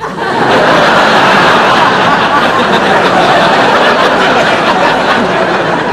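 A crowd of voices laughing and chattering at once, starting abruptly and loud and holding steady.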